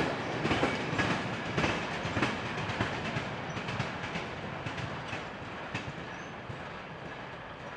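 Freight train's wagons rolling past, the wheels clacking over rail joints. The clatter fades away as the last wagons clear and the train draws off.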